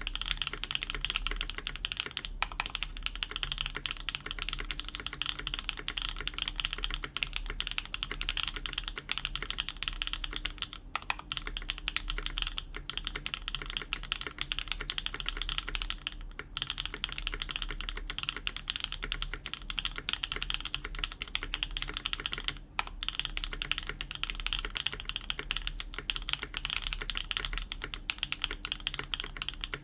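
Continuous typing on a KBDfans Tiger80 Lite mechanical keyboard with lubed Gateron Smoothies linear switches, an FR4 plate and PBT keycaps: a dense, steady patter of keystrokes, broken by a brief pause three times.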